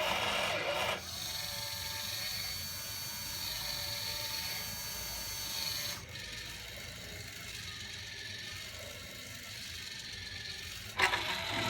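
Motors of a PCB drilling machine running steadily with a whine of several tones as its axes move. The tone drops and changes about six seconds in, and a sharp click comes near the end.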